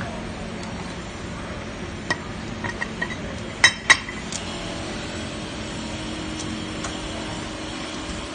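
A few light clinks and taps of hard objects, with two sharp, loud clinks about a third of a second apart midway, over a steady low hum.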